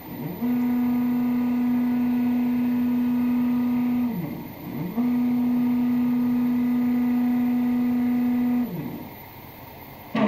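Stepper motors of a DIY CNC router driving its axes on linear guides: a steady whine whose pitch rises as each move speeds up and falls as it slows. Two moves, with a brief drop and rise in pitch about four seconds in, and the motors stop about a second before the end.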